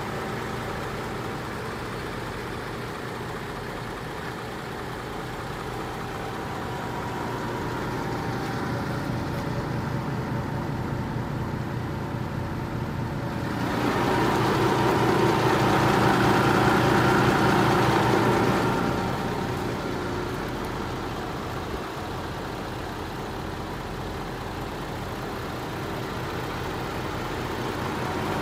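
Hino J08C inline-six diesel engine idling steadily. It grows louder for about five seconds midway, heard close up from under the chassis, then settles back.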